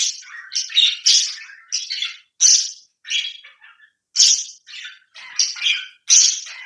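Pet parrots calling: a rapid run of short, harsh, chattering calls, several a second, broken by brief pauses.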